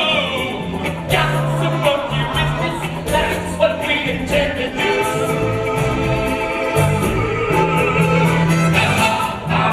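Musical theatre song: voices singing with a pit orchestra, held notes over a sustained bass line and a steady beat.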